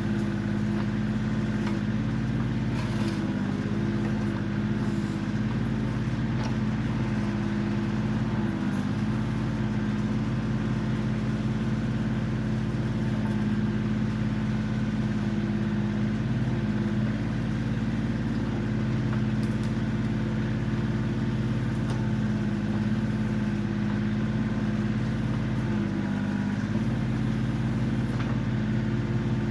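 Kioti CK20 compact tractor's diesel engine running steadily while the backhoe works, its pitch dipping briefly a few times.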